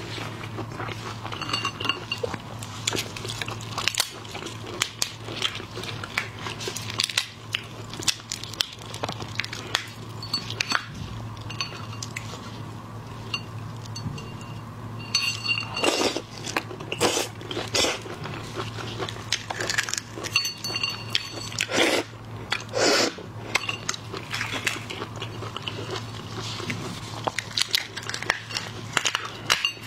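Prawn shells cracking and crackling as they are pulled apart and peeled by hand in plastic gloves. The clicks and crunches come in a rapid, irregular run, with a few louder cracks around 16 and 22 seconds in.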